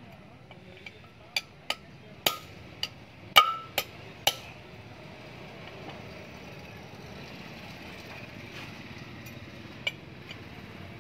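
Hand hammer striking a steel drift set in the hole of a Mahindra 265 DI tractor's crown wheel carrier to drive out the bearing collar: about seven sharp metallic strikes, some ringing, in the first four seconds, then a pause and one more strike near the end.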